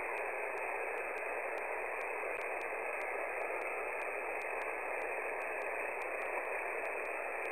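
Steady hiss of a shortwave amateur radio receiver on the 20-metre band with no station transmitting, so the open frequency carries only band noise, with a faint wavering whistle underneath. No station is answering the call for check-ins.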